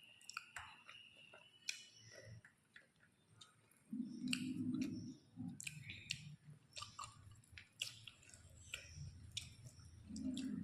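Close-miked chewing and wet mouth sounds of a person eating rice and curry: soft smacks and small clicks, with a short low hum about four seconds in and again near the end.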